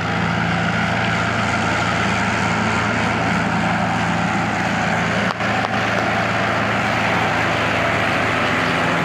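Tractor diesel engine, the Mahindra 575 DI nearest, running steadily at high revs while pulling hard in a tug-of-war against another tractor.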